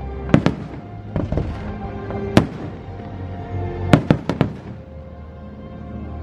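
Aerial firework shells bursting in sharp bangs: a few in the first second and a half, a single one about two and a half seconds in, and a quick run of four around four seconds in. The show's music plays steadily underneath.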